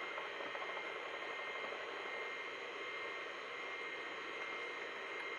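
Steady hiss of a running 286 PC, with a thin steady whine over it.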